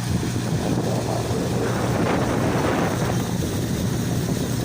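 A small fishing boat's motor running steadily underway, with wind buffeting the microphone and water rushing past; the wind-and-water noise swells louder for about a second in the middle.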